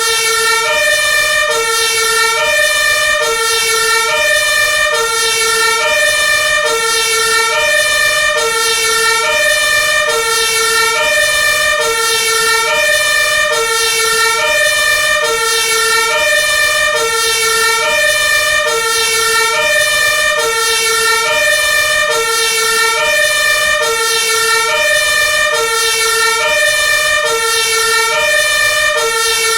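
Two-tone hi-lo siren of an Iveco Magirus Eurocargo 160E30 fire department aerial ladder truck, sounding loud and steady, alternating evenly between a low and a high note, each held about half a second.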